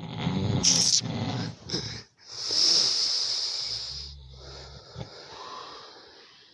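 Snoring: a rattling snore for about two seconds, then a long breathy hiss that slowly fades.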